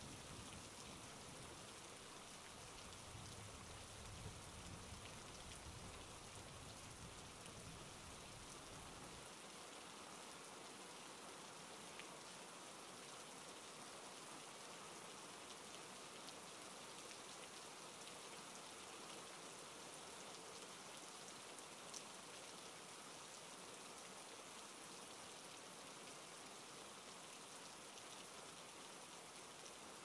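Steady, soft rain falling on a surface, with a low rumble underneath that cuts off about nine seconds in.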